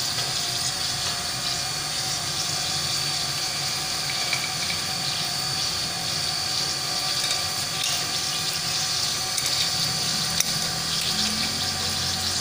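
Steady hiss of water running through the pump's pipework with the supply opened, a faint steady whine over it. One light click about ten seconds in.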